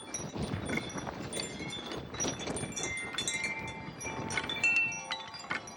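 Wind chimes ringing in gusty wind: many clear, overlapping tones at different pitches struck irregularly and ringing on. Wind buffets the microphone underneath.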